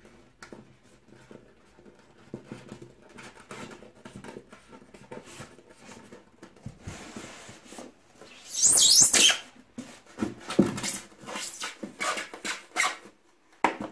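Sensor cable being pushed through a tight hole in a polystyrene foam box lid, the foam rubbing and squeaking against it in a series of squeaks, loudest a little past halfway. The squeak shows the hole is exactly the cable's size.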